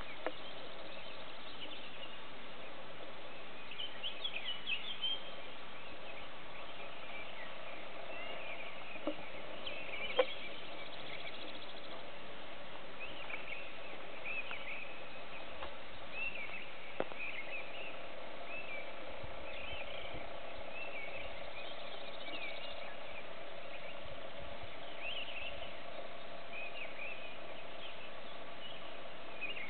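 Several wild songbirds singing in a forest: short high chirps and warbling phrases come one after another throughout, over a steady background hiss. A sharp click sounds about ten seconds in and another about seventeen seconds in.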